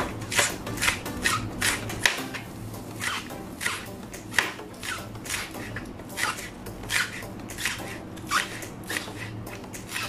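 Chef's knife slicing green onions into small rounds on a cutting board: a run of short knocks of the blade on the board, about two a second, unevenly spaced.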